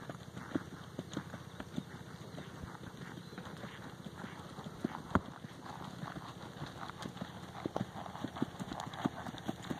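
Hoofbeats of ridden draft horses cantering on a dirt arena: an irregular run of soft thuds, with one louder knock about five seconds in.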